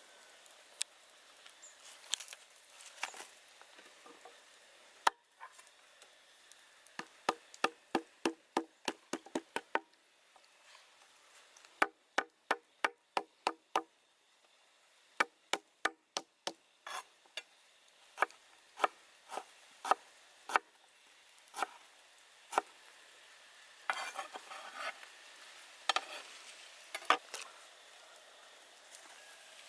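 A blade chopping on wood: runs of sharp knocks at about three a second, with pauses between them and more spaced single chops later.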